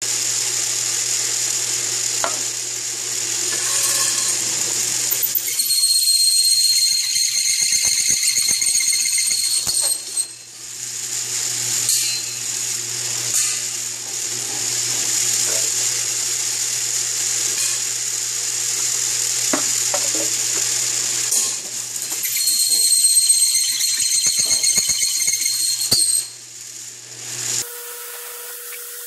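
Drill with a hole saw cutting through a stainless steel square tube: the motor hums steadily while the cutter gives a high-pitched squeal that comes and goes, strongest about a quarter of the way in and again near three quarters. The motor stops shortly before the end.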